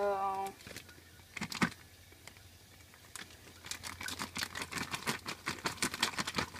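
Plastic Ziploc bag crinkling as it is handled: a couple of sharp crackles about a second and a half in, then a quick, dense run of crackling through the last few seconds.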